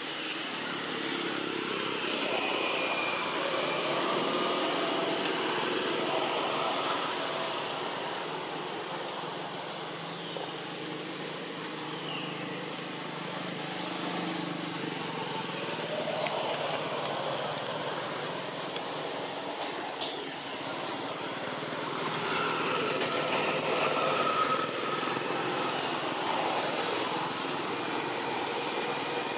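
Road traffic passing: vehicle engines swelling and fading over a steady outdoor background.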